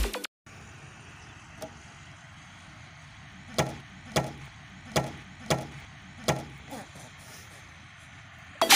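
A series of about seven sharp, short knocks at uneven intervals over a faint steady outdoor background.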